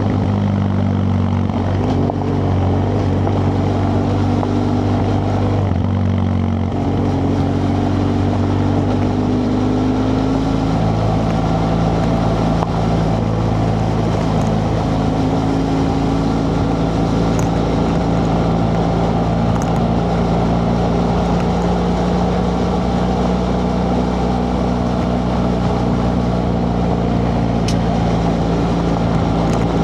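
BMW F 800 GS parallel-twin engine on its stock exhaust, running under way. The engine note changes pitch a few times in the first ten seconds, then holds steady, with a few light ticks later on.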